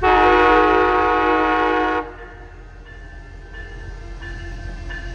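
Horn of an Amtrak Midwest Siemens Charger passenger locomotive sounding one loud blast of about two seconds that starts and cuts off suddenly. A bell rings at a steady pace behind it, about once every 0.7 s, over a low train rumble.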